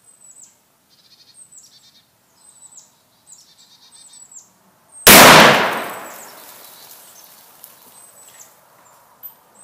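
A single shot from a Marlin 1895SS lever-action rifle in .45-70 Government about halfway through: a sudden, very loud report that rolls away over a second or two. Birds chirp faintly before and after.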